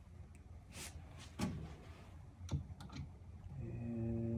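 A few light clicks and knocks as a screw is set into a cabinet door hinge, then near the end a cordless drill/driver starts turning slowly with a low, steady hum as it begins driving a countersunk flathead screw through the hinge.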